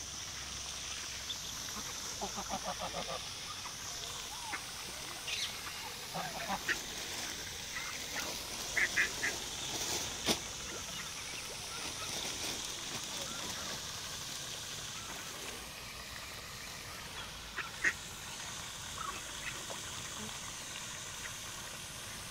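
Ducks and geese calling now and then: short scattered quacks and honks, with a quick run of rapid calls about two seconds in and a few short high calls near the middle, over a steady faint hiss.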